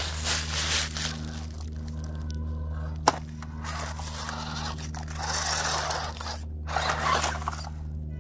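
RC crawler truck's tyres crunching and scraping over dry leaves and a tree root, in uneven stretches, with one sharp click about three seconds in. A steady low hum runs underneath.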